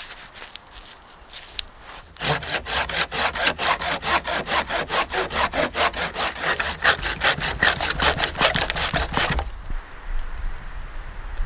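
Folding hand saw cutting through a dead branch in fast, even strokes. The sawing starts about two seconds in and stops about two seconds before the end, with soft rustling before and after.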